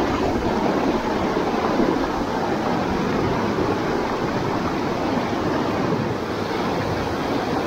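Mountain stream rushing over rocks: a steady, unbroken rush of water.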